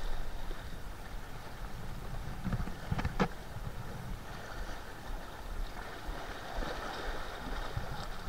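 Sea water washing against a rocky shore, with wind on the action camera's microphone. Two sharp clicks come close together about three seconds in.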